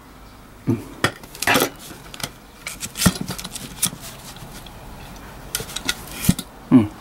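Scattered metallic clanks and knocks, about eight in all, as a removed motorcycle muffler and exhaust pipe are handled and set down on the ground.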